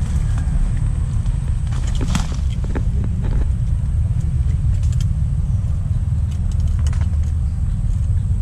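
Steady low rumble on the microphone of a body-worn action camera, the sound of wind and handling noise, with a few light clicks and rustles about two to three and a half seconds in.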